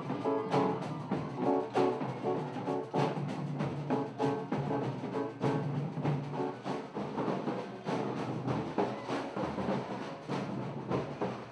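Percussion-driven music, drums beating a steady rhythm under pitched instruments.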